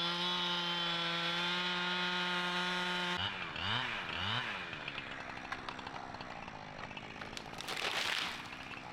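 Two-stroke chainsaw at high revs, its pitch climbing and then holding steady for about three seconds. It then drops off suddenly, gives two quick throttle blips, and settles to a low running hum.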